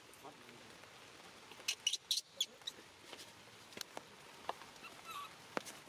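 Baby monkey giving a quick cluster of short, high-pitched squeaks about two seconds in and a fainter one near the end, among scattered clicks.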